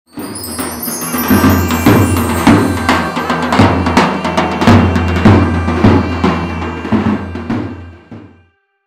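Background music with a steady drum beat over a low bass line, fading out near the end.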